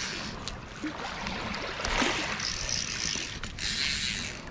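Fly reel (Ross Animas) clicking in quick buzzing bursts, strongest about two seconds in and near the end, as line is reeled in and given on a hooked fish being played.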